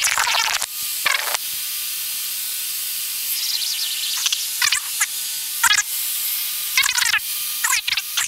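Steady hiss of an aircraft intercom and radio feed, broken several times by short bursts of garbled radio chatter.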